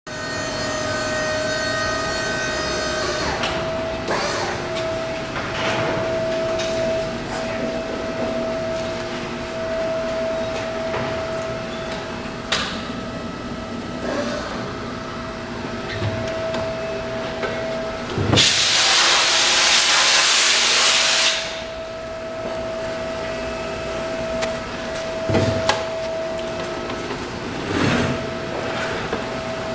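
Workshop background with a steady hum and a few scattered knocks, broken about two-thirds of the way through by a loud rushing hiss of air that lasts about three seconds and then cuts off.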